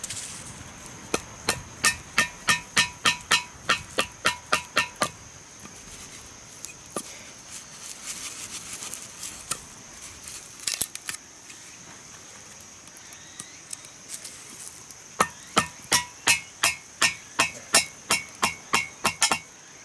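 Two runs of quick chopping strikes, about three a second, each with a short ringing note, separated by a gap of a few scattered knocks.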